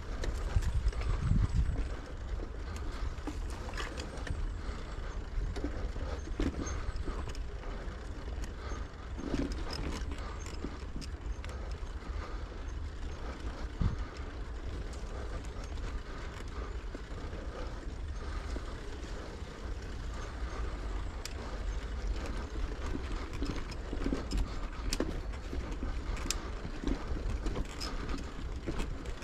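Bicycle ride heard from the bike: wind rumbling on the microphone over rolling noise, with scattered rattles and clicks from the bike, louder for the first couple of seconds.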